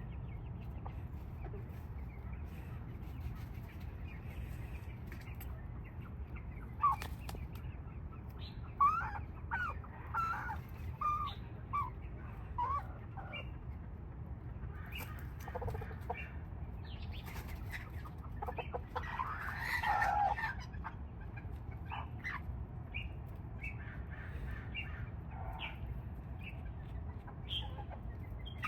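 Serama bantam chickens clucking while foraging. There is a run of short clucks about a quarter of the way in and a longer, louder call about two-thirds through, all over a steady low background rumble.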